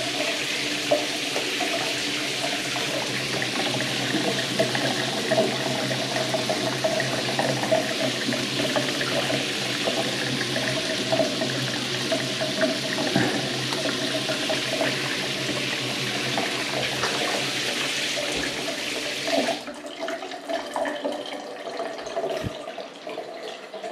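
Shower water running full from a newly installed shower valve and spraying onto the tiles, with steady humming tones underneath; it is being run to test the valve and let the water get warm. The flow stops suddenly about four-fifths of the way through, leaving a few drips.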